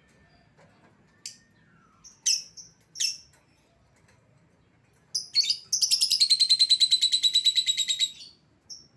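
Lovebird calling: a few short, sharp, high chirps, then a long rapid rattling chatter of about two and a half seconds (the "ngekek" call), ending with one more chirp.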